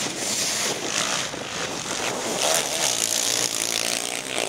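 Sidecarcross outfits' motorcycle engines running on the motocross track, several engines mixing, with pitch rising and falling as they rev.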